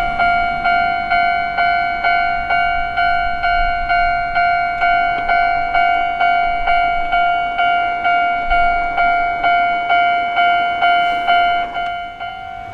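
Japanese railway level-crossing warning bell ringing in a steady, rapid repeat of about two strikes a second, signalling an approaching train.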